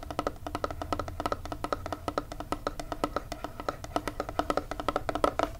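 Long fingernails tapping rapidly on a hard eyeshadow palette, about nine taps a second. Each tap rings with the same hollow tone.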